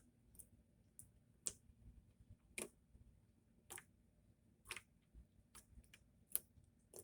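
Faint small handling clicks, roughly one a second at uneven spacing, over near silence.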